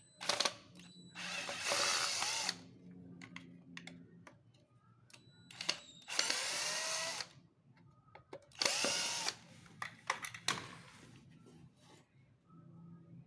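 Cordless drill-driver backing out the screws that hold a washing machine's drain pump, running in several short bursts of about a second each, with small clicks and handling noise between.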